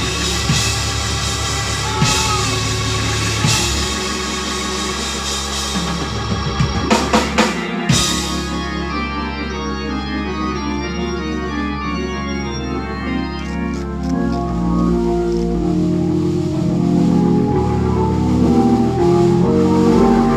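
Organ playing a gospel praise break in full chords, with drums behind it. A quick run of drum hits comes about seven to eight seconds in, after which the organ moves through held chords that settle lower.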